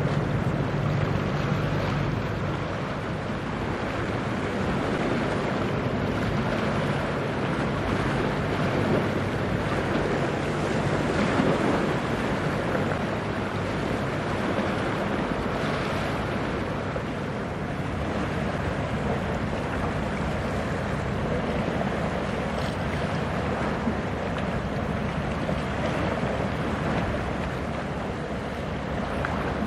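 Steady wash of wind on the microphone and choppy water, with a low hum from a passing container ship that is strongest in the first couple of seconds.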